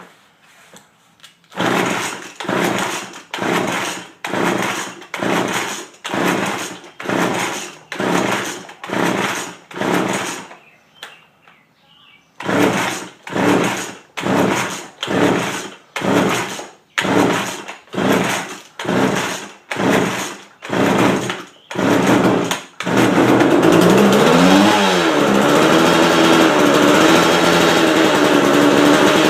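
Cold start of a McCulloch Mac 3200 two-stroke chainsaw on full choke: a long series of pull-cord yanks about one every 0.8 seconds, a short pause, then more pulls before the engine catches about 23 seconds in and keeps running. Just after it catches the engine note dips and rises once, then settles into a steady run.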